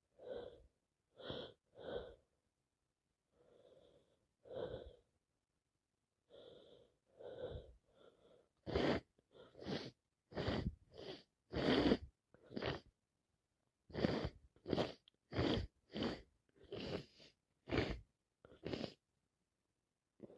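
A person with a head cold sneezing over and over in quick succession, with wheezy, catching breaths between. The first part is quieter hitching breaths, and from about halfway the sneezes come louder and faster, one after another.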